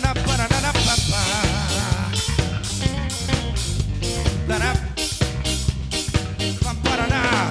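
Live band playing an instrumental passage of a reggae-style song, with drum kit, bass and a wavering melodic lead line over a steady beat.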